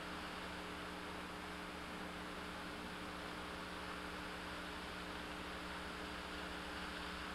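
Steady hiss with a low electrical hum, the recording's own noise floor; no distinct event stands out.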